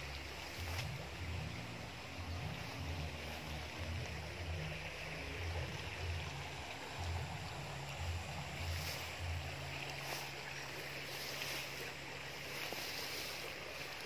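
Uneven low rumble of wind buffeting the microphone, over a hiss of grass brushing and rustling as someone walks through thick weeds.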